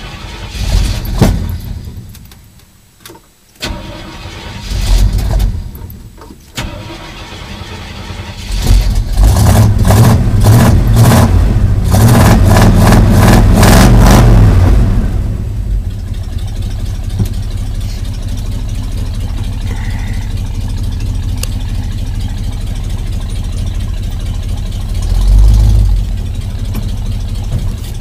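1979 Jeep J10's AMC 360 V8 on dual straight pipes, heard from inside the cab, being hard to start while warm: it catches and dies twice in the first few seconds, then fires about eight seconds in. It runs loud for several seconds, then settles to a steady idle, with a short rev near the end.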